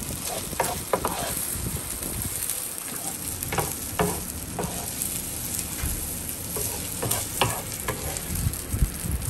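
Beef fajita sizzling on a hot electric griddle while a wooden spatula scrapes the pieces up and drops them into a pan of cooked meats. The frying hiss runs under a scatter of sharp scrapes and taps.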